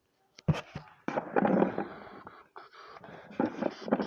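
Two sharp knocks, then a few seconds of rustling and clattering as fidget toys are rummaged through in a shop bin.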